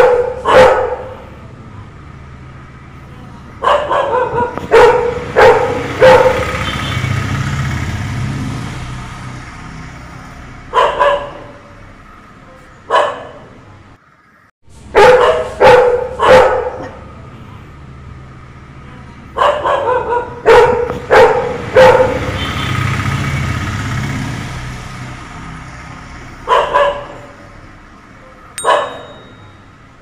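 Two dogs, a Labrador and a smaller tan dog, barking at a peacock. The barks come in clusters of three to five, with pauses of several seconds between them.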